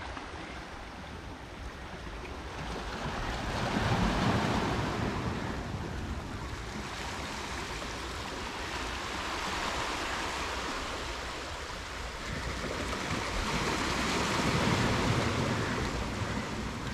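Sea surf washing on a beach, a steady rush of waves that swells as a wave breaks about four seconds in and again a couple of seconds before the end.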